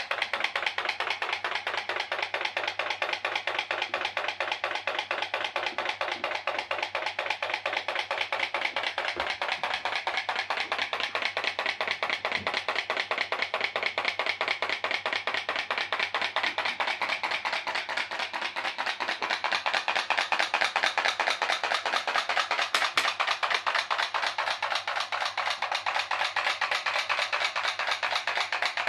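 Homemade pop-pop boat's aluminium-can steam boiler, heated by a candle, clicking in a fast, even, steady rhythm. This is the noisy pulsing of a working pop-pop engine, its diaphragm flexing as steam pulses drive water in and out of the tubes.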